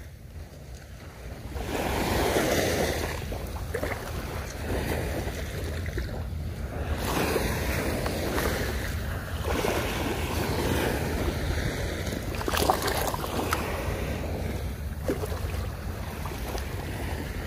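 Small waves lapping and washing on the shoreline, swelling and ebbing every few seconds, with wind rumbling on the microphone.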